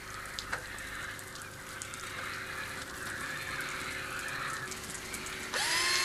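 Quiet, even background noise, then about five and a half seconds in a small electric motor starts with a brief rising whine and runs at a steady pitch, in the manner of a power drill.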